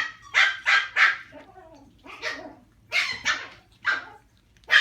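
Puppy yapping: short, sharp, high-pitched barks in uneven bursts, about eight in all.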